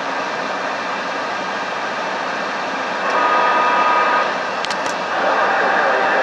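CB radio receiver hissing with band static between transmissions, with faint steady whistling tones from distant carriers coming in about halfway and a couple of short clicks.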